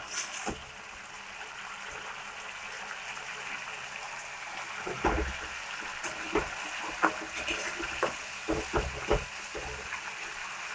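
Spiced masala with whisked sour yogurt sizzling steadily in a metal kadai while it is stir-fried. A metal spatula scrapes and knocks against the pan several times in the second half.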